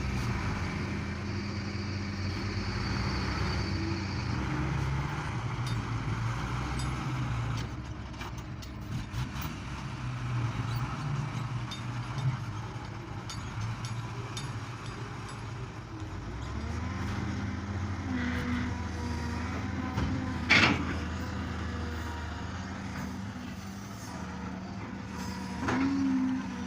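Heavy diesel excavator engine running and rising and falling in load as it works, with a sharp metallic clank about twenty seconds in.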